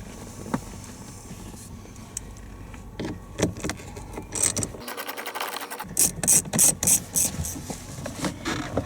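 Hand work on a minivan's plastic inside door trim panel as it is unscrewed and worked loose: irregular clicks, scrapes and rattles, sparse at first and coming thick and sharp over the last few seconds.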